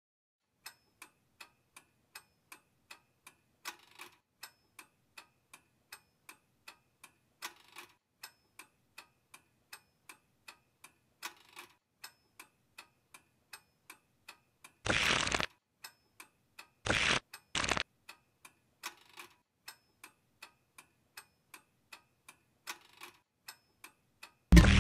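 Steady, even ticking, about three ticks a second, with a slightly stronger tick every three to four seconds. About halfway through, short rushes of noise break in once, then twice more close together.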